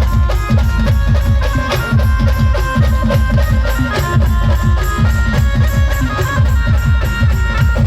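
Instrumental band music: a fast, steady drum beat under held melody notes.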